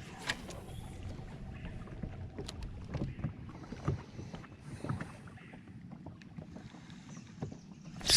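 Faint, scattered small clicks and knocks of gear being handled in a fishing boat, over a light steady background hiss.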